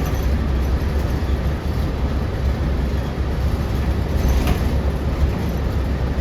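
Steady low rumble of engine and road noise inside a moving bus.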